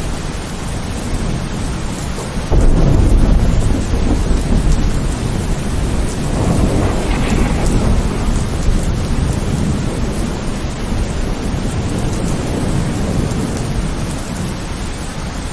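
Steady heavy rain with thunder rumbling: a deep roll of thunder comes in suddenly about two and a half seconds in, and another swells and fades around seven seconds.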